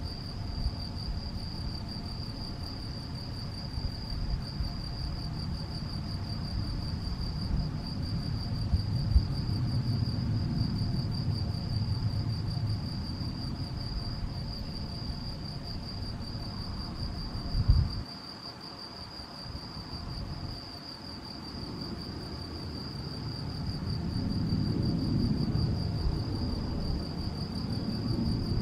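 Male field cricket (Gryllus campestris) singing its calling song: a steady, high-pitched chirping that does not let up, with a low rumble that comes and goes underneath.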